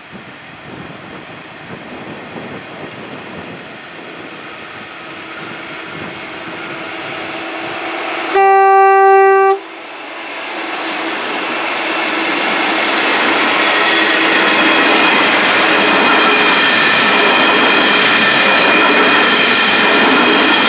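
Narrow-gauge Pacific National coal train approaching and passing: its diesel locomotives grow steadily louder and sound one horn blast about a second long a little before halfway. The locomotives then go by and the coal wagons roll past with a steady rumble of wheels on rail.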